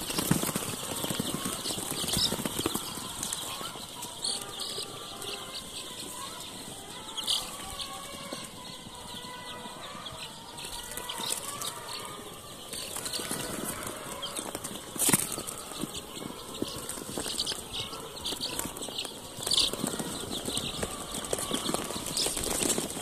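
A large flock of young chicks cheeping over each other in many short, high peeps, with ticking and rustling in the wood-shaving litter. One sharp knock about two-thirds of the way through.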